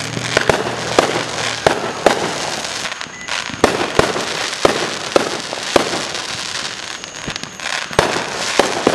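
Aerial fireworks going off: a dozen or more sharp bangs and pops at uneven intervals over a steady hiss.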